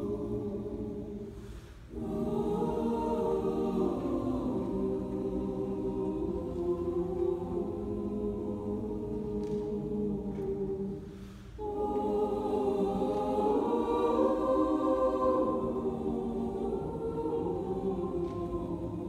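Mixed choir of men's and women's voices singing sustained chords, with two short breaks, about two seconds in and about eleven seconds in.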